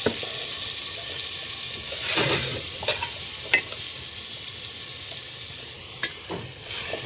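Chicken and potato masala sizzling in an aluminium cooking pot: a steady hiss, with a few sharp clicks.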